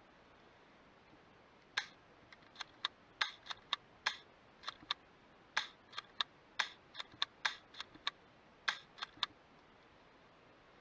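Airsoft gunfire: about twenty sharp single cracks at irregular intervals, starting about two seconds in and stopping about a second before the end.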